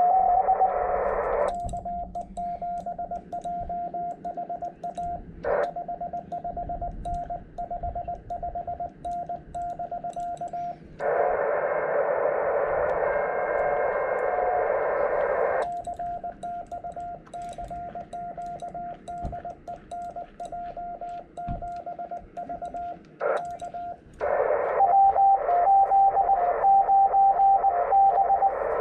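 Morse code (CW) on a ham radio transceiver tuned to the 18 MHz band: a steady tone keyed into dits and dahs over receiver hiss. The hiss swells louder for a few seconds around the middle and again near the end, where a second keyed tone at a slightly higher pitch joins in.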